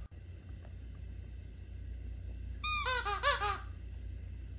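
Rubber squeaky toy squeaked by a dog biting it: a quick run of about six squeaks, each rising and falling in pitch, a little past halfway through.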